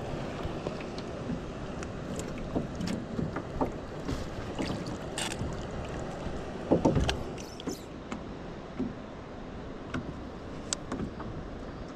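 Water lapping against the hull of a small drifting boat, with scattered knocks and clicks and a louder thump about seven seconds in.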